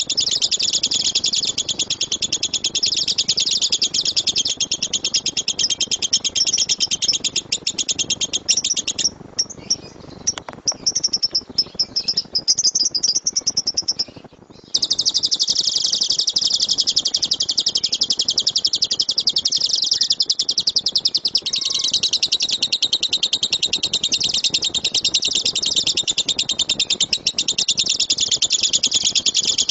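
Lovebird giving its long, rapid 'tembakan' chatter: a continuous string of very fast, high chirps. About nine seconds in it breaks into sparser, scattered chirps for a few seconds, drops out briefly, then resumes the dense run.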